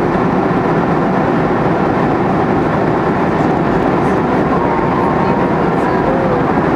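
Steady, loud roar of an airliner cabin in flight: engine and airflow noise that holds an even level throughout, with faint brief tones near the middle.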